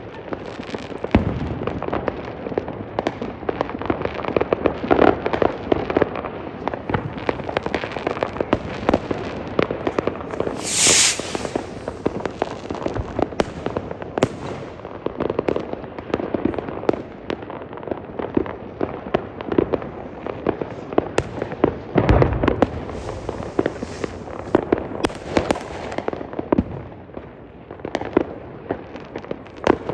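Fireworks going off in a continuous barrage of bangs, pops and crackles from many fireworks at once, with a brief loud hiss about eleven seconds in.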